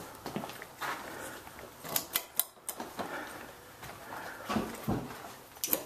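Irregular footsteps and knocks with a few sharp clicks, the sound of someone walking down into a basement carrying a camera.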